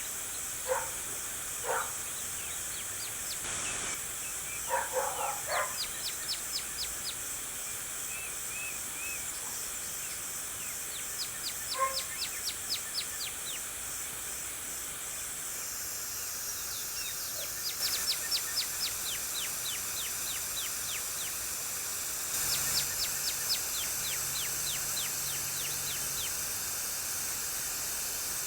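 Garden hose spraying water up into the air with a steady hiss, while small birds call over it in rapid trills of high chirps that come again every few seconds.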